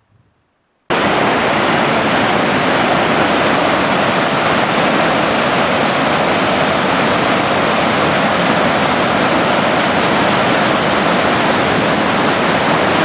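Whitewater of a high-running mountain creek rushing over rocks and logs: a loud, steady rushing that cuts in abruptly about a second in.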